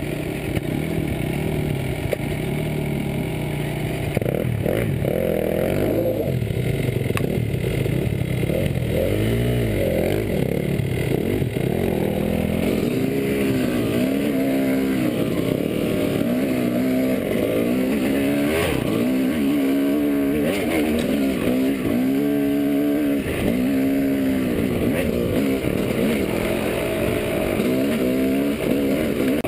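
Dirt bike engine revving up and down over and over as the rider works the throttle over rough ground, with a few sharp knocks from the bike.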